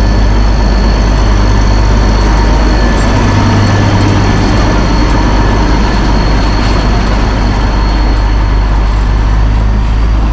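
Diesel locomotive engine of the Darjeeling toy train running steadily as it shunts coaches: a deep, even hum with a thin high whine over it.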